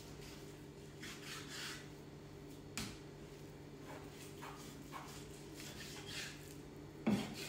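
Knife cutting raw pork on a cutting board: several soft scraping strokes, a sharp tap about three seconds in, and a louder thump near the end, over a steady low hum.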